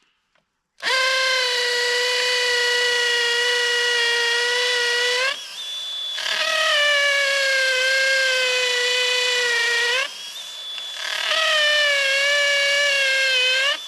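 DeWalt DCD996 20V brushless cordless drill boring into a hardwood ash trunk in three runs of several seconds each: a steady motor whine that sags a little under load and rises in pitch as the drill unloads at the end of each run.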